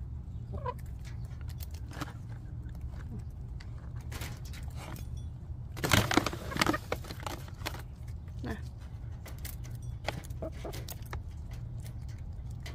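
Chickens pecking at and through a chicken-wire fence: scattered sharp pecks and jangling of the wire mesh, with a louder clatter about six seconds in and a few short clucks. A steady low hum runs underneath.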